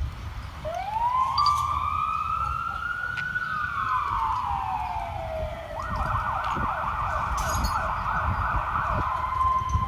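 Fire engine siren: one slow wail rising and falling in pitch, which switches about six seconds in to a fast yelp, over a low rumble.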